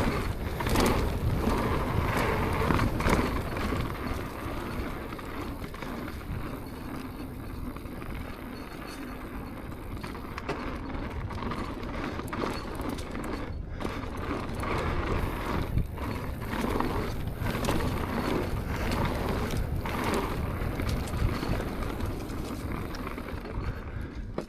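Propain Tyee full-suspension mountain bike being ridden over a rough dirt trail: continuous tyre noise on dirt and rock, with irregular knocks and rattles from the bike.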